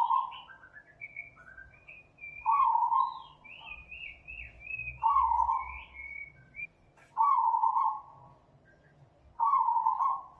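Animal calls: a short call repeated five times, about every two seconds, with fainter high chirps and warbles between them.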